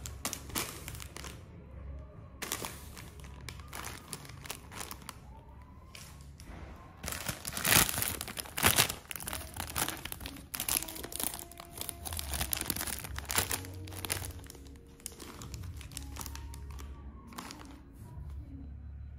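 Foil-lined snack bags of popcorn crinkling and rustling as they are picked up and handled, loudest about halfway through.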